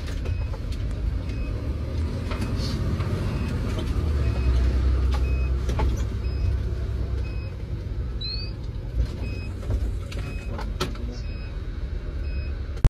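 Fire engine heard from inside its cab while driving: a steady heavy low engine and road rumble with scattered knocks and rattles. A short high beep repeats a little under once a second.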